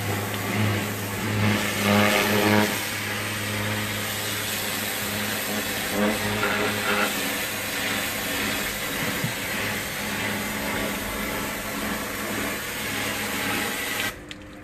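Steady engine hum with a hiss over it, cutting off suddenly near the end.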